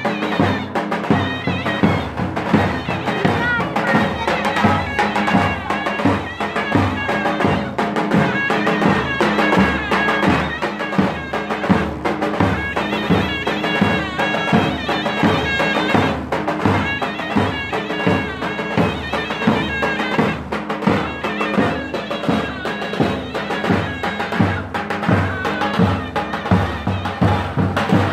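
Live folk dance music: a large double-headed davul drum beating a steady dance rhythm under a loud, ornamented melody on a reed wind instrument.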